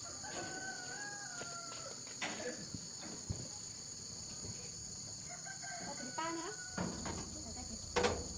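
A bird's long held call near the start, lasting about two seconds, over a steady high insect chirring, with a sharp knock near the end.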